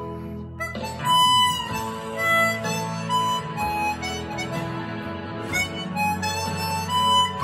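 Hohner 280-C Chromonica chromatic harmonica playing a slow melody in held notes, with a brief break in the line about a second in.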